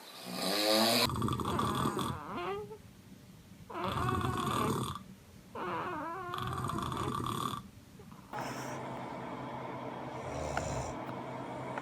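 A man snoring: three long, loud snores a second or so apart, then from about eight seconds in a steady, quieter noise with a low hum.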